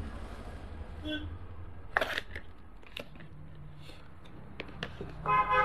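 Cardboard retail box being opened by hand: a few short scrapes and crackles of the card as the inner tray is slid out, the loudest about two seconds in.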